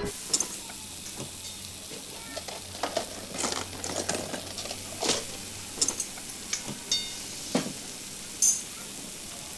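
Food sizzling in a pan, with sharp clinks and knocks of metal utensils and vessels scattered through it, a few of them ringing briefly.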